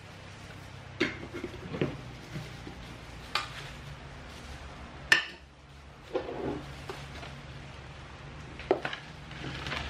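Scattered clinks and knocks of dishes and a stainless steel roasting pan being handled on a wooden table, the sharpest knock about five seconds in, over a low steady hum.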